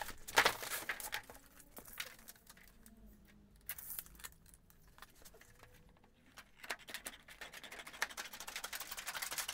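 Thin aluminium trim coil rattling and flexing as it is unrolled flat, then, near the end, a fast run of snipping clicks as the sheet is cut across.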